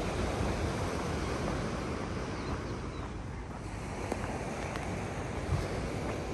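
Sea surf washing onto the shore, swelling and easing, with wind buffeting the microphone. There is one brief low thump near the end.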